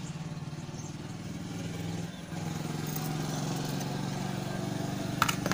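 An engine idling nearby: a steady low hum with an even pulsing beat. A couple of sharp metallic clicks near the end.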